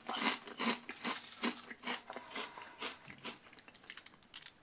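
Someone chewing a mouthful of Lorenz Crunchips ridged potato crisps: a run of crisp crunches, about three a second, getting fainter as the mouthful is chewed down.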